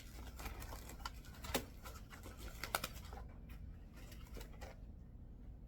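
Packaging being cut open with a razor blade and handled: scratchy rustling and light clicks, thinning out about three seconds in.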